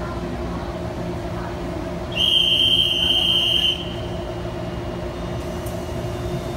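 Metro door-closing warning tone: a loud, steady high beep lasting about a second and a half, starting about two seconds in. Under it runs the steady hum of the train standing at the platform.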